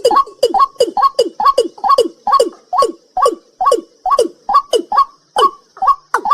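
A night bird calling in a fast, even series, about two short calls a second, each opening with a click and falling in pitch. A steady faint high hiss lies underneath.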